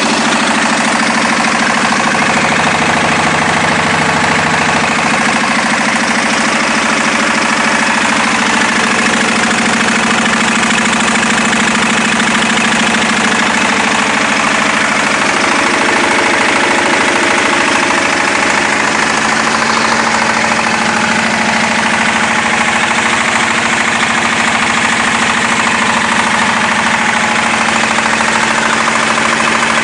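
Diesel power generator's engine running steadily and loudly at a constant speed.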